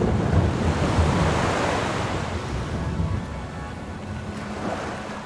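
Ocean surf at a lava sea entry: a wave surges in and washes back, swelling at the start and fading over a few seconds, with low wind rumble on the microphone.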